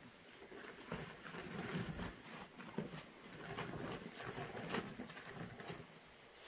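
A wet sponge squeezed and worked through cleaner suds in a plastic tote: irregular wet squelches and crackling foam, picking up about a second in.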